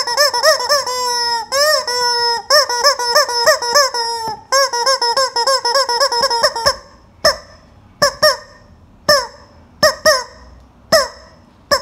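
A chicken calling loudly: a fast run of repeated squawks, about five a second, for the first six and a half seconds or so, then single squawks about once a second.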